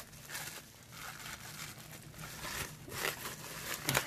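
Bubble wrap crinkling and rustling as it is handled and pulled open by hand, with a few louder crackles near the end.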